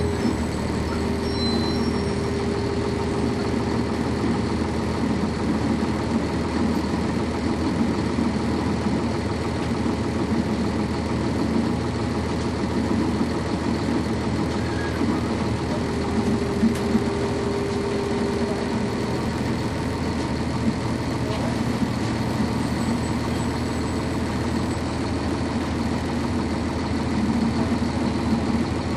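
Cummins ISC diesel engine of a 1999 NovaBus RTS transit bus running steadily, heard from inside the bus cabin. A steady tone rises out of the engine sound near the start and again about two thirds of the way through.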